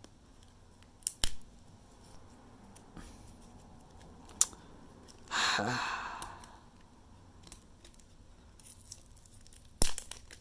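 Plastic packaging of a sealed trading-card deck being worked open by hand: a few sharp clicks, and one longer tearing, crinkling rip about five seconds in, the loudest sound.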